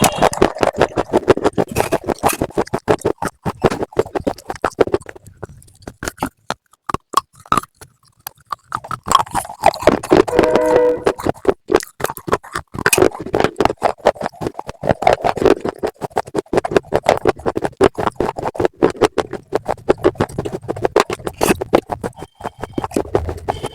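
Close-up crunching and chewing of hard slate pencils, a fast irregular run of sharp crunches that eases off briefly about a quarter of the way through.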